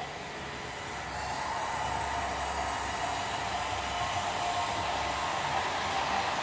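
Steady whirring hum of Märklin model trains running on the layout's track, growing a little louder about a second in.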